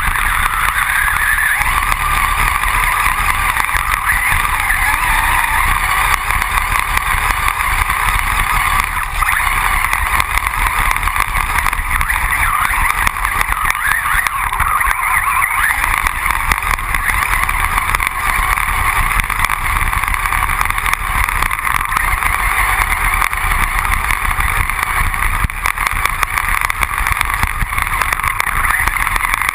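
Hobbyking Turnigy 1/10 brushless RC buggy driving over snow, heard from on board: a steady, unbroken whir of the motor and drivetrain mixed with tyre and chassis noise.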